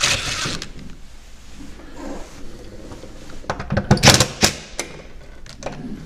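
Hand-tool work on a metal door strike plate in a wooden frame as the strike is reset to fit the latch. A short scraping burst at the start, then a quick cluster of sharp knocks and scrapes about four seconds in, with a few single clicks after.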